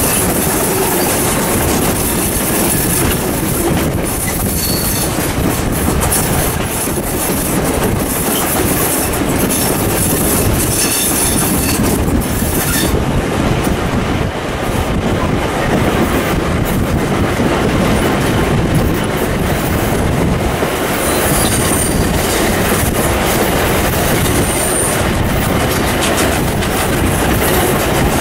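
South Australian Railways 620 class 4-6-2 steam locomotive 621 working hard up a 1 in 45 grade, its chimney exhaust mixed with the carriage wheels running over the rails. It is heard from an open carriage window as a loud, steady rush of noise.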